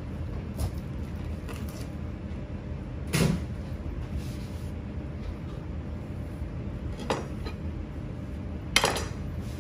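Knife and fish knocking on a plastic cutting board as a whole salmon is broken down: three sharp knocks, the loudest a heavy thud about three seconds in, over a steady low hum.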